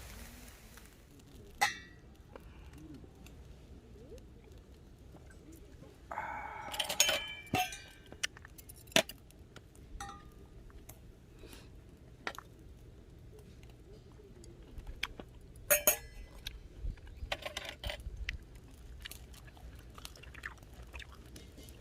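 Intermittent clinks and clatters of small hard objects being handled, with a busy cluster about six to eight seconds in and another around sixteen seconds, over a low background hum.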